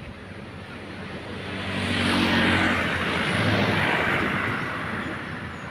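A vehicle engine passing by, growing louder to a peak about two to four seconds in, then fading away, its pitch dropping slightly as it goes.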